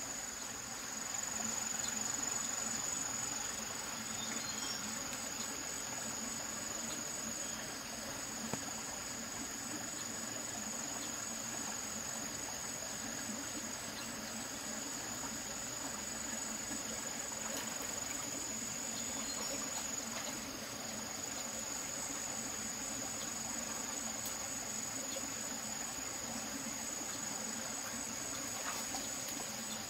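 Crickets trilling without pause in one steady high-pitched tone, over an even background hiss.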